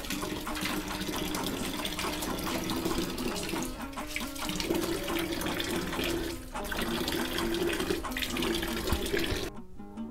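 Water running from a wall tap and splashing over hands as they are washed beneath it, with two brief dips about four and six and a half seconds in. It stops suddenly just before the end.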